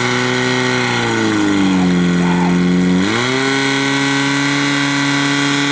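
Portable fire pump's engine running hard. Its pitch sags about a second in and stays low, then jumps back up about three seconds in and runs steady.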